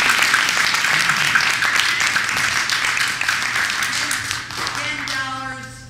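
Audience applause: many people clapping, dying away over several seconds. A few voices talk as it fades near the end.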